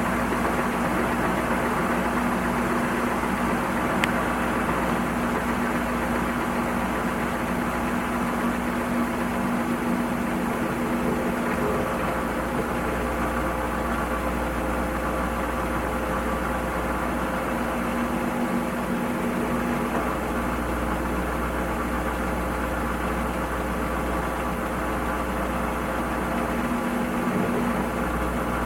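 Washing machine running steadily: a constant motor hum over a low rumble, with a single small tick about four seconds in.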